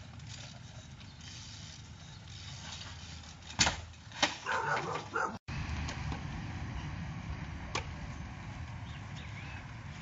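BMX bike knocking against a concrete ledge and steps as the rider hops and lands: a loud sharp knock about three and a half seconds in, a second soon after, and a lighter one near the end, over steady outdoor background noise.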